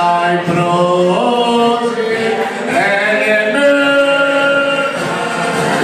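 A song with a singing voice holding long notes that step from pitch to pitch.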